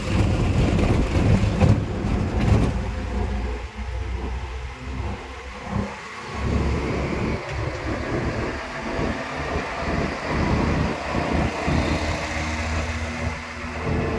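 Road and traffic noise heard from an open-sided rickshaw in motion: vehicle engines and tyre rumble, loud and uneven.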